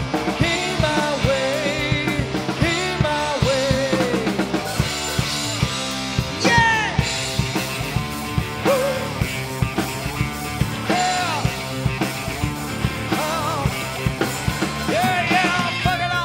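Grunge rock band playing: a drum kit keeping a steady beat under a lead line of sliding, bending notes.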